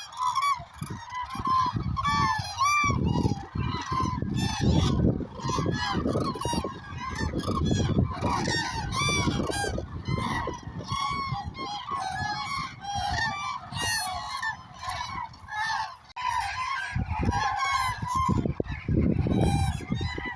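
A large flock of common cranes calling all at once, many overlapping trumpeting calls with no pause between them.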